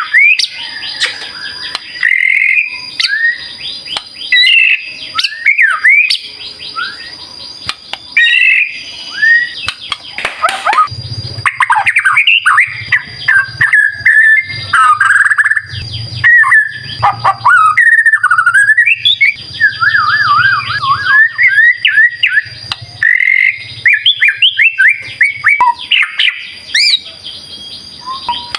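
White-rumped shama (murai batu) singing a loud, fast run of varied phrases: clear whistles sliding up and down, sharp chirps and quick chattering notes, with brief pauses between phrases. A thin, steady high tone runs faintly underneath.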